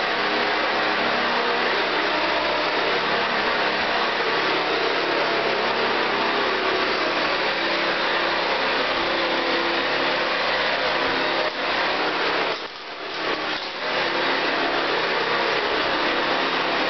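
1970s Hoover Convertible U4127 upright vacuum cleaner running steadily while being pushed over carpet to pick up spilled oatmeal. About twelve seconds in, the sound drops briefly for a second or two, then comes back.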